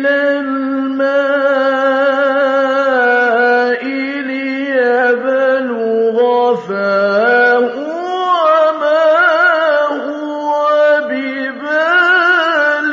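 A man reciting the Quran in slow, melodic chant, holding long steady notes, then climbing into higher, wavering ornaments about eight seconds in.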